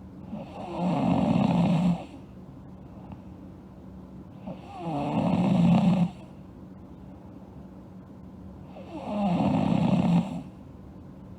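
A sleeping girl snoring: three snores about four seconds apart, each building up over about a second and then stopping abruptly, with quieter breathing between them.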